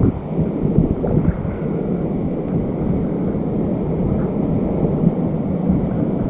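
Wind blowing across a small action camera's microphone: a steady low rumble with irregular gusts.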